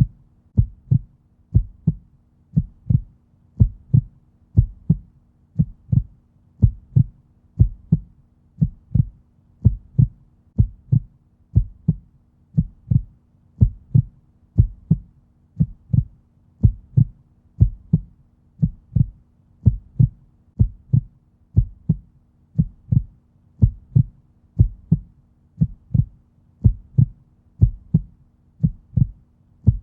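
Heartbeat sound at a resting rate: a steady, slow lub-dub of paired low thumps, about one beat a second, over a faint steady hum.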